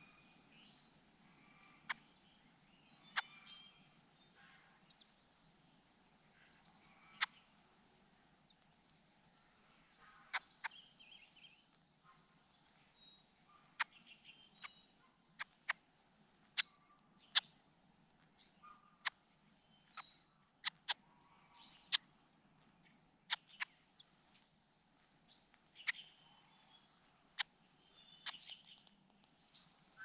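Cuckoo chick begging for food: a high-pitched call repeated over and over, uneven at first and then at a steady pace of about three calls every two seconds. Sharp clicks sound among the calls.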